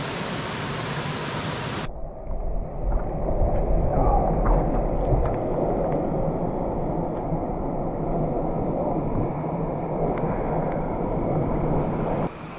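Steady rush of a waterfall and running water. About two seconds in, the sound abruptly turns duller, a lower rumble with no hiss on top, and it changes abruptly again near the end.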